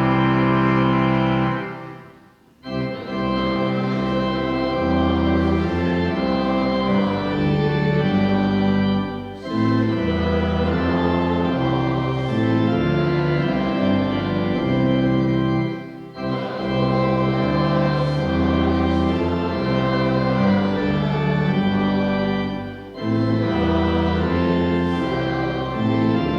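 Church organ playing held chords phrase by phrase, with a brief break about every six or seven seconds, in the manner of hymn lines.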